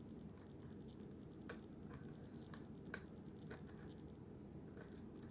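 Faint metallic clicks of a lock pick working the pins of a five-pin Viking deadbolt during single-pin picking, with two sharper clicks about two and a half and three seconds in, over a steady low hum.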